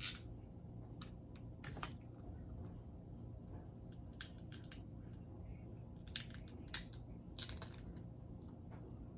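Seafood-boil food being broken apart and eaten by hand, likely king crab shell: scattered sharp cracks and clicks, with a few short rustling bursts.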